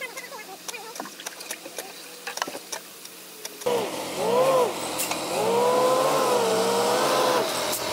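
A few scattered light knocks, then from about halfway the diesel engine of a ProAll volumetric concrete mixer truck revving up and down repeatedly as it is manoeuvred.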